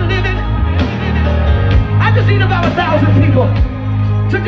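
Live gospel band playing loudly with a heavy bass line, and voices singing over it with wavering, drawn-out notes.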